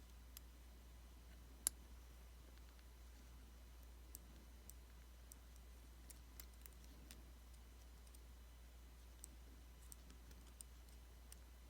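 Near silence with a low steady hum and faint scattered clicks from small parts and a tiny screwdriver or tweezers being handled on an iPhone's logic board. One sharper click comes about a second and a half in.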